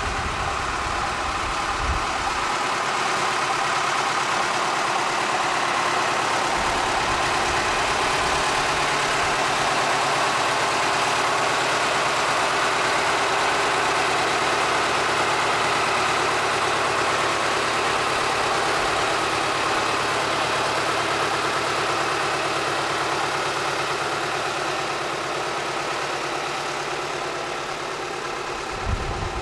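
Small diesel locomotive's engine running steadily at low speed while it moves a railcar, getting a little louder through the middle and easing off near the end.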